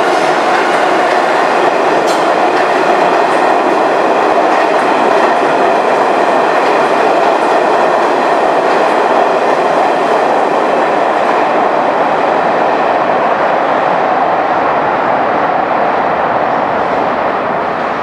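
New York City subway train running through an underground station at speed: a steady rail rumble with wheel clatter. It fades near the end as the train moves away.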